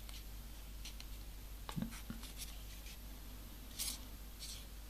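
Faint rustling and light clicks of folded paper origami modules being handled by fingers, with a short scratchy rustle about four seconds in.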